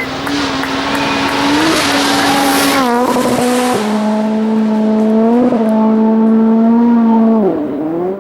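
A World Rally Car's turbocharged engine at full throttle on a gravel stage, held at high revs with the pitch stepping down at quick gear changes about three and four seconds in. There is a burst of gravel and tyre hiss around two to three seconds in, and the engine drops off near the end as the throttle lifts.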